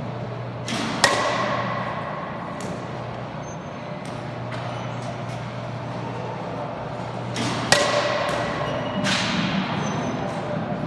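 Baseball bat striking machine-pitched balls twice: a sharp crack with a brief ringing tail about a second in and again near eight seconds, with fainter knocks in between, over a steady low hum.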